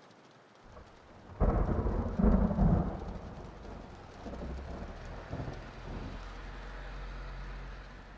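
Thunder: a sudden clap about a second and a half in, then a long rolling rumble that slowly fades.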